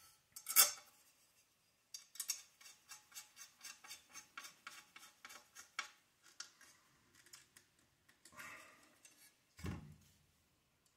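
Small hand hex driver turning screws into a metal RC car chassis plate to mount the steering posts: a sharp clack about half a second in, then a run of quick, light metallic clicks, about four a second, and a duller knock near the end.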